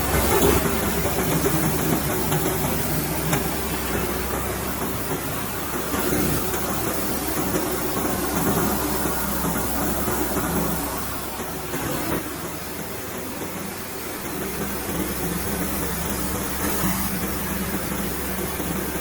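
Small rubber-roller rice milling machine running steadily: a continuous motor hum with a hiss over it, easing slightly in loudness about twelve seconds in.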